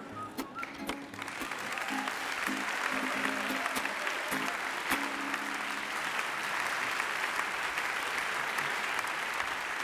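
Audience applause swells in about a second in and carries on steadily, over the last few plucked lute notes, which stop about six seconds in. A whistled tune ends in the first second.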